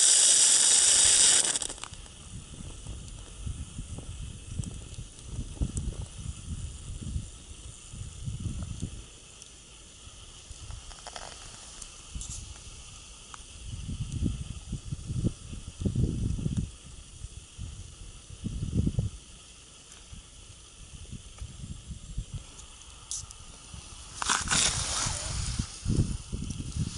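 Homemade model steamboat's boiler venting a loud hiss of steam and water for the first couple of seconds, as excess liquid is driven out of the boilers. After that only a faint hiss with irregular low rumbles, and a second burst of hissing near the end.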